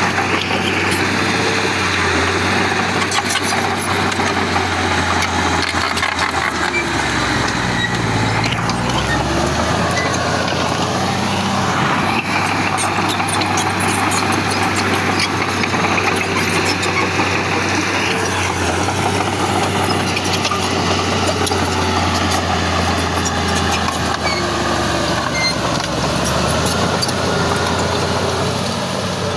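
Heavy diesel engine of earthmoving machinery running steadily. About seven seconds in, its note drops lower for a couple of seconds, then comes back up.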